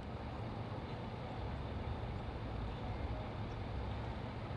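Steady low engine rumble of idling motors, with no distinct revs or impacts.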